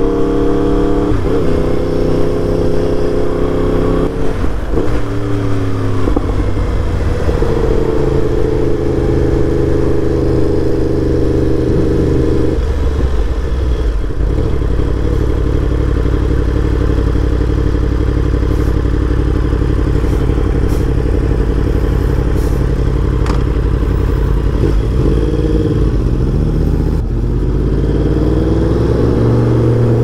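Yamaha YZF-R1M's crossplane inline-four with an Akrapovic full exhaust system, heard from the rider's seat while riding. The engine note steps and rises as it pulls, holds steady for a few seconds, and drops to a lower steady note about twelve seconds in. It changes pitch again and rises near the end as the bike accelerates.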